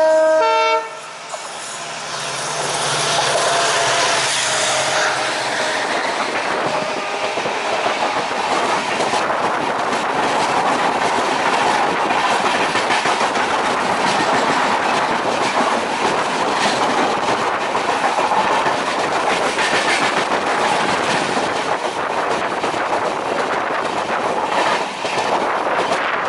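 A diesel train horn ends about a second in. It is followed by the steady rumble and clickety-clack of a passenger train running over the rails, building up over the next couple of seconds and then holding steady.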